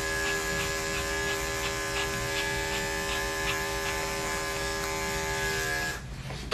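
Electric dog grooming clippers running steadily with a light ticking about three times a second as they cut through a matted coat, switching off about six seconds in.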